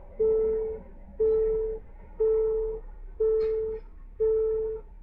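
Electronic warning chime beeping steadily, once a second, five beeps in all, each a single mid-pitched tone of about half a second.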